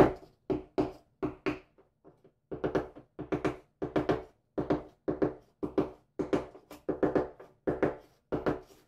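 Hammer knocking on a hand-held wooden block pressed against glass mosaic tile, a steady series of hollow wooden knocks about two to three a second, often in quick pairs, with a short pause about two seconds in. This is beating the mosaic sheet flat into the thin-set so its back is fully bedded to the wall.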